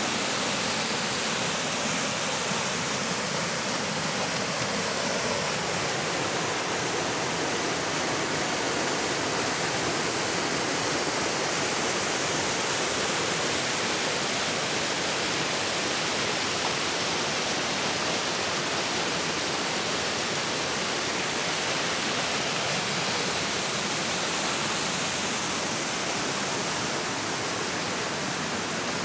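Mountain river in spring flow rushing over rocks and small drops: a steady, even noise of white water.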